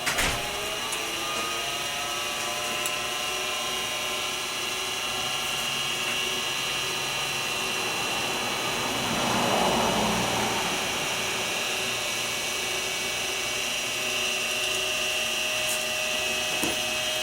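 Mini milling machine running with a steady motor whine as an end mill takes material off a small sawn part. The cutting gets louder for a moment about nine to ten seconds in.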